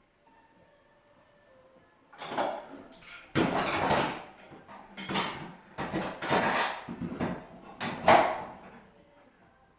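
Irregular clanks, knocks and scrapes of metal door parts and tools being handled, starting about two seconds in and carrying on until near the end, the loudest knock late on.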